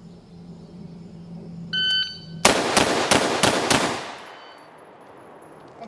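A shot timer's short start beep, then five rifle shots in quick succession about a third of a second apart from a 12.5-inch AR-15-type carbine, each shot cracking sharply, with the range echoing off after the last one.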